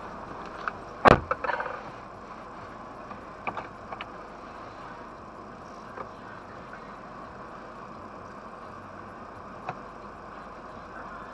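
A car idling, heard from inside its cabin as a steady hum. About a second in there is a sharp clunk with a short clatter, and a few faint clicks follow later.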